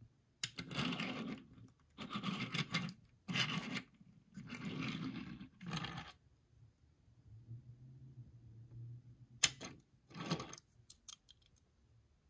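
Toy packaging being opened by hand: five rough, noisy tearing strokes, each under about a second, then a sharp click about nine and a half seconds in and one more short stroke.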